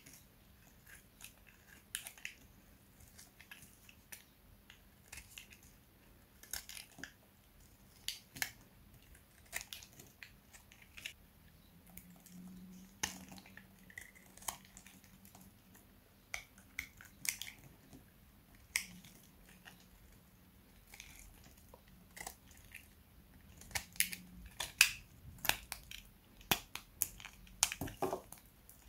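Dry, hard soap crunching and cracking: a string of sharp, irregular crackles that come thicker and louder in the last few seconds.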